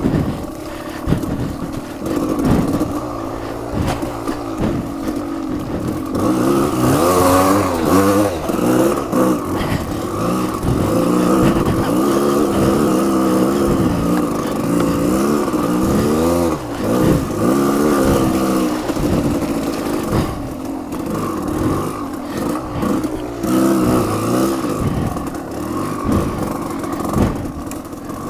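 Off-road vehicle engine revving up and easing off over and over as it rides a slippery, muddy trail, its pitch rising and falling with the throttle, with scrapes and knocks from the ride.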